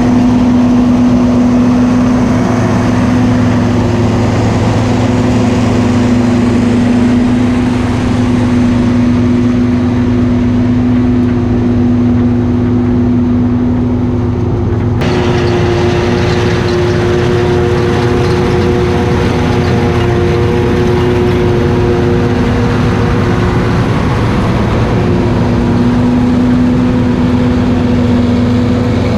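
Farm machinery engine running steadily at constant speed during corn silage harvest, with a steady pitched hum. The sound changes abruptly about halfway through.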